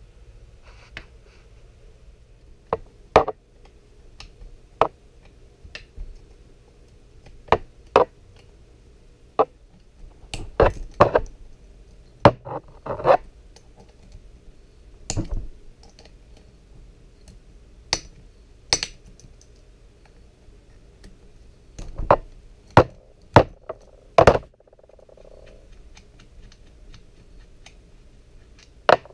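Metal tools and engine parts clinking and knocking as a two-stroke motorcycle engine is taken apart on a workbench. About twenty sharp knocks come at uneven intervals, bunched in two clusters.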